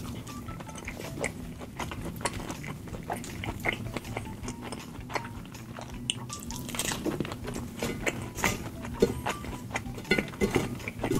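Close-up eating sounds: wet chewing and slurping of saucy rice cakes and noodles, with a fork clicking on the plate, over quiet background music.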